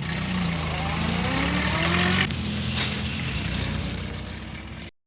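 Van engine pulling away, its pitch rising as it accelerates, dropping about two seconds in and then rising gently again while it slowly fades. The sound cuts off abruptly just before the end.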